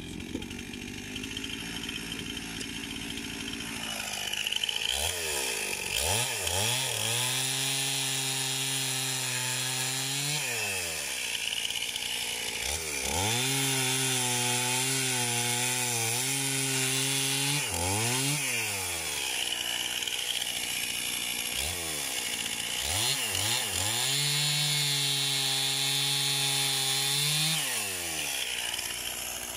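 Gasoline chainsaw idling, then revved up to full throttle three times to cut through firewood logs. Each cut holds at high engine speed for several seconds before the engine drops back toward idle.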